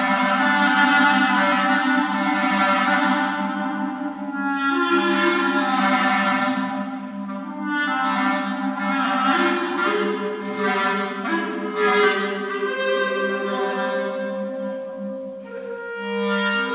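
Clarinet music: a slow melody moving from note to note over steady held low notes.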